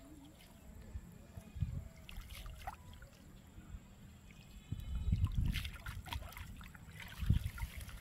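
Water trickling and splashing off a wet cast net as it is hauled out of a shallow pond and gathered by hand, with louder low rumbling bursts about five seconds in and again near the end.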